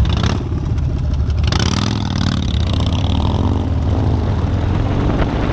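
Motorcycle engine running with a deep, low rumble, its revs rising and falling from about a second and a half in.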